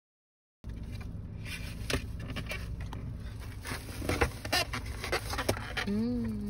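A moment of silence, then a foam takeout container being handled and held open, making scattered clicks and rustles over the low rumble of a car cabin. Near the end, a short hummed voice sound rises and then falls.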